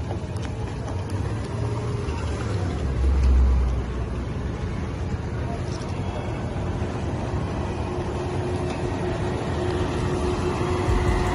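Cars rolling slowly at low speed: a steady engine and tyre sound with a low rumble about three seconds in.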